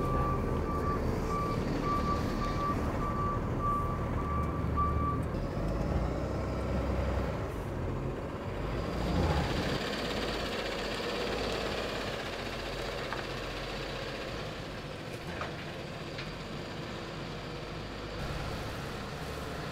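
Backup alarm on a Peterbilt 220 cab-over hooklift truck beeping about twice a second for the first five seconds, then stopping, over the truck's diesel engine running. The truck then moves off with a loaded roll-off dumpster, and its engine grows quieter as it pulls away.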